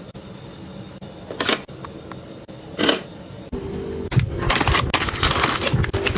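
Items being handled: two short clicks or rustles, then from about halfway a steady hum starts under a quick run of clattering and rustling.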